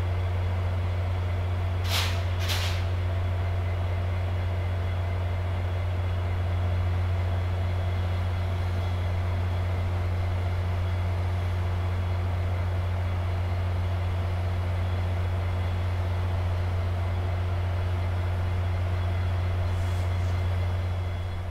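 Standing diesel locomotive of a VIA Rail passenger train, its engine running at a steady, unchanging low drone. Two short hisses of released air about two seconds in.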